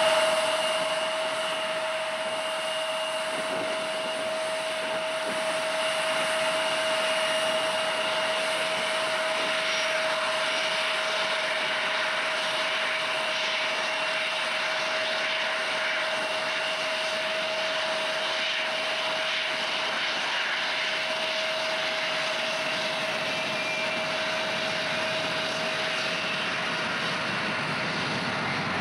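Boeing 737-300's CFM56-3 turbofan engines running at taxi idle: a steady whine over an even hiss of jet noise.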